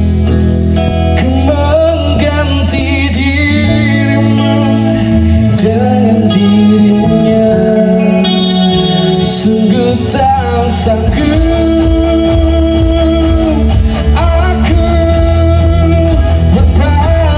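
A solo voice singing a slow pop ballad over acoustic guitar accompaniment, with long held notes between phrases.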